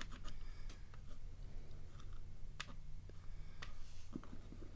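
Small lock pins from a gutted lock clicking lightly and irregularly as they are handled and set out on a work surface, over a low steady hum.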